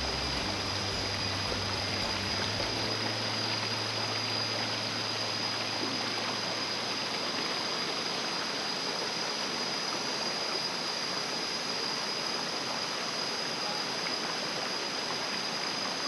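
Steady rush of a rocky forest stream running into a pool, with a thin steady high whine over it.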